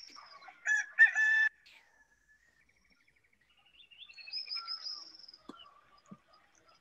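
Recorded dawn sound effect: a rooster crows once, loud and short, about a second in, then songbirds chirp and trill high and fast, marking daybreak.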